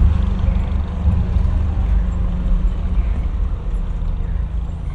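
Steady low rumble of a motor vehicle's engine running, easing off slightly near the end.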